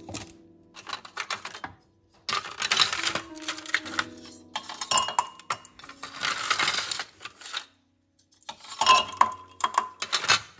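Cups, a spoon and other kitchenware clinking and rattling in several separate bursts with short pauses, some strikes ringing briefly, as coffee is made by hand.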